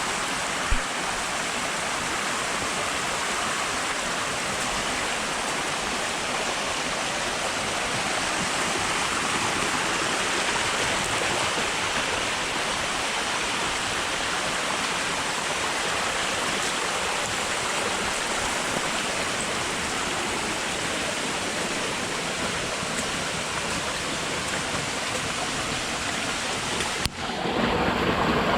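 Steady rushing of falling water from a waterfall or stream. Near the end the sound changes abruptly to a lower, fuller rush.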